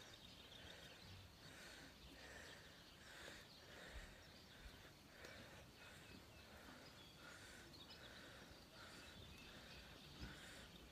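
Near silence: faint rural outdoor ambience, with a soft chirp repeating about twice a second.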